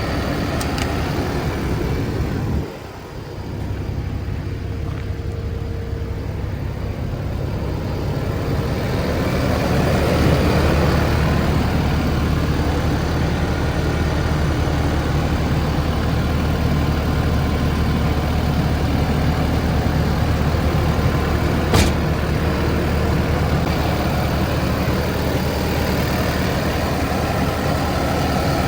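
Kubota SVL95-2S track loader's 87 hp Tier 4 diesel engine running, with a steady low hum. It briefly drops away about three seconds in, then gets louder from about eight seconds on. One sharp click comes near the last quarter.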